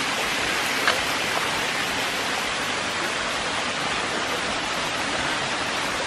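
Waterfall water rushing in a steady, even roar, with a brief click about a second in.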